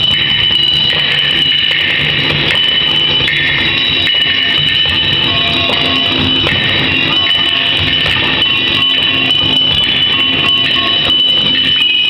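Percussion played on steel kitchen pots, bowls and tins, in uneven rhythmic patches, over a steady high-pitched ringing tone.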